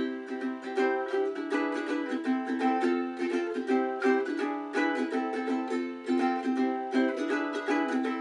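3D-printed ukulele strummed in chords with a steady strumming rhythm.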